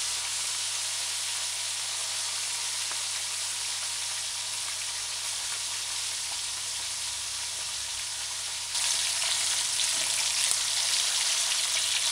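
Whole sprats (small herring) shallow-frying in hot oil in a skillet: a steady sizzle that steps up louder, with fine crackling, about nine seconds in.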